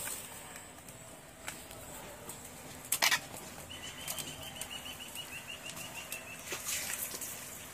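A spoon and ladle knock and scrape against steel plates while sticky halwa is served and spread onto a banana leaf, with one short loud clatter about three seconds in. Then a bird gives a quick run of about fifteen chirps, each a little lower than the last.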